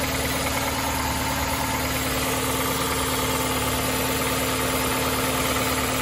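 2012 Ford Escape's 2.5-litre inline-four engine idling steadily, heard from underneath the car, running on fresh oil just after an oil change while it is checked for leaks.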